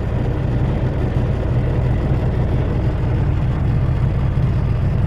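Semi truck's diesel engine idling: a steady low hum.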